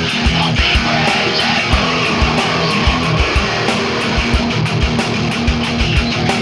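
Rock band playing an instrumental passage: electric guitar and bass over a steady drum beat.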